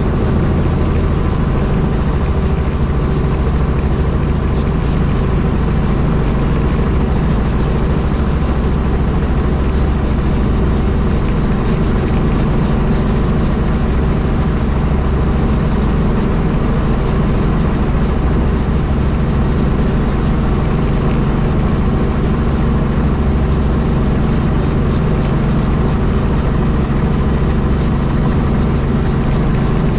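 Helicopter in flight, its rotor and engine making a steady, loud drone that holds unchanged throughout.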